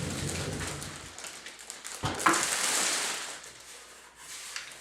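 Plastic wrapping crinkling and rustling as it is pulled off a computer case, with one sharp knock about two seconds in. The rustling tapers off near the end.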